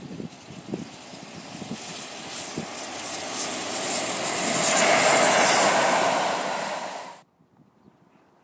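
Steam-hauled passenger train approaching and passing close by, a rising roar of locomotive and wheels on the rails that peaks about five seconds in. It cuts off abruptly about seven seconds in, leaving only faint wind.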